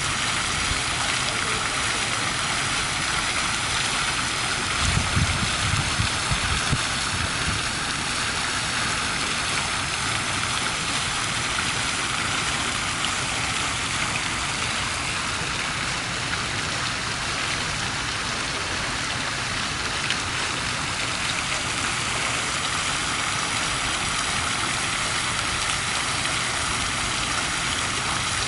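Fountain water splashing steadily as the jets fall onto a pedestal bowl and into the pool below, an even rain-like hiss. A few low rumbles come in briefly about five to seven seconds in.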